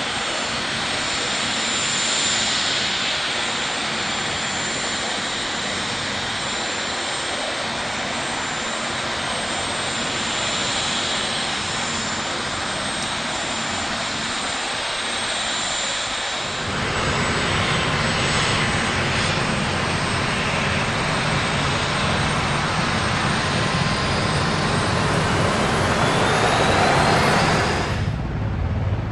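Marine Corps VIP helicopter's turbine engines running with a steady high whine. About halfway through, a low rotor beat comes in and the sound grows louder.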